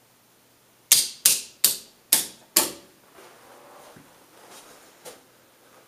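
Five sharp, evenly paced footsteps of hard-soled shoes on a vinyl tile floor, each ringing briefly in the bare room, followed by faint shuffling and a small click.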